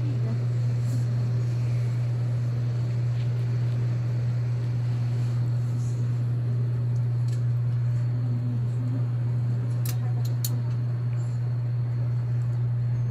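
A steady low hum that never changes, with faint voices in the background and a few sharp clicks about ten seconds in.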